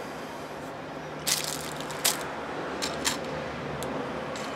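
Thin steel piston rings clinking and scraping as they are handled and laid on a digital scale: a handful of sharp metallic clicks about a second apart, over a faint steady hum.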